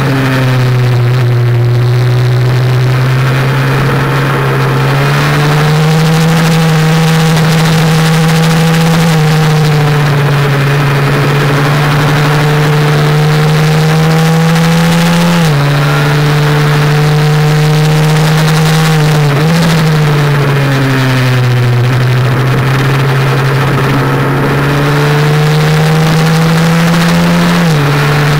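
Honda NSF100's single-cylinder four-stroke engine heard onboard at racing speed, its pitch climbing slowly under throttle and dropping sharply three times: about halfway through, about two-thirds through and near the end.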